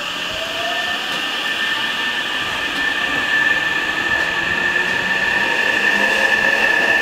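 Hankyu 9000 series electric train pulling away and accelerating: the traction motors whine and rise in pitch as it gathers speed, growing steadily louder as the cars pass.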